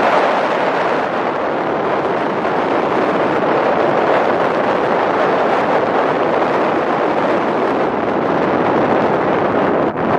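Steady rushing of wind buffeting the microphone on the ferry's open deck, with a brief dip just before the end.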